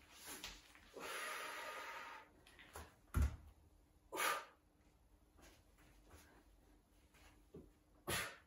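A person breathing hard during floor exercise: a long breath about a second in, then short sharp exhales near four seconds and again near the end. Just after three seconds a dull thud, the loudest sound, as a foot or hand lands on the foam mat.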